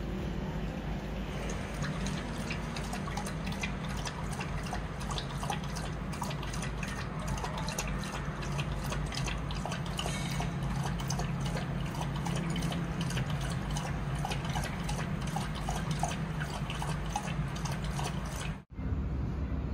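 Golden retriever lapping water from a bowl: a quick, rhythmic run of wet splashy laps over a steady low hum, breaking off abruptly near the end.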